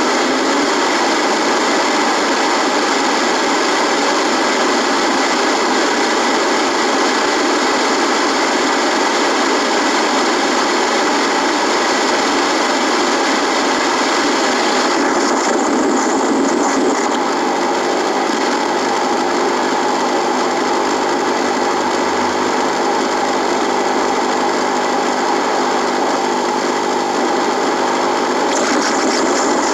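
Radio static buzzing, a steady hiss between stations. About halfway through the hiss turns duller and faint steady hum tones come in; near the end it brightens again.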